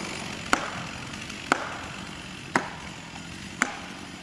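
Four sharp, ringing strikes about a second apart: blows driving felling wedges into the back cut of a large pine being felled.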